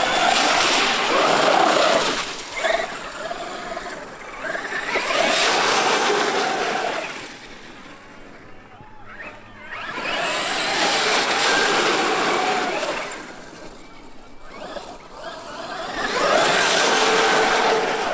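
Traxxas X-Maxx 8S brushless electric RC monster truck driving hard: a whine from the motor and drivetrain that rises and falls, over the noise of big tyres churning wet dirt. It comes in four loud swells, a few seconds apart, as the truck accelerates and passes.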